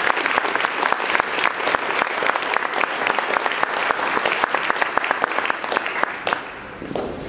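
Audience applauding, a dense run of hand claps that thins out and dies away near the end.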